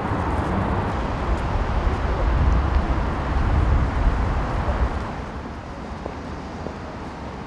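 City traffic ambience: a steady low rumble of road traffic with hiss on top, easing slightly after about five seconds.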